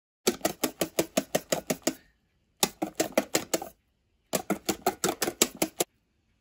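A wire balloon whisk beating cream in a stainless steel bowl, its wires clicking against the metal in three quick runs of about seven strokes a second, with short pauses between.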